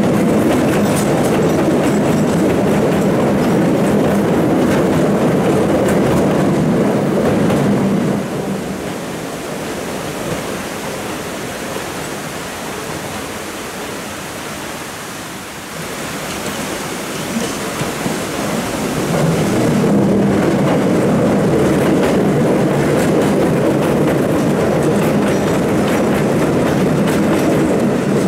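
Hakone Tozan Railway electric railcars rolling across a short bridge, a loud rumble of wheels and clatter over the rail joints. The sound drops back after about eight seconds, and a second train comes up and passes loud again from about two-thirds of the way in.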